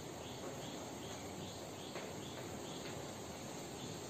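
A cricket chirping faintly and steadily, a short high chirp a little over twice a second, with a light tap or two of chalk on a blackboard.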